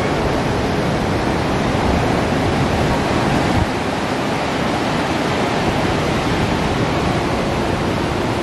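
Surf breaking against the rocks at the foot of a sea cliff, heard from high above as a steady, even rush of water.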